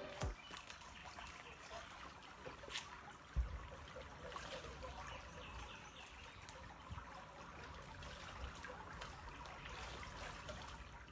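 Faint water sloshing and trickling as a dog wades on the steps of a swimming pool, with a soft thump about three and a half seconds in.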